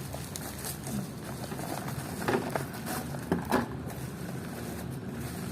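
A few short clicks and knocks, three of them close together about two to three and a half seconds in, over a steady low hum.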